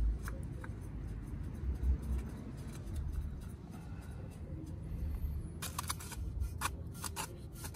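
Faint handling noise of a new oil filter being spun onto a motorcycle engine by hand: soft rubbing and scraping over a low rumble, then a quick run of sharp clicks and taps near the end as the hand comes back out past the exhaust pipes.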